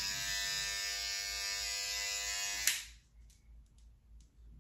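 Electric toothbrush running with a steady buzz, then switched off under three seconds in.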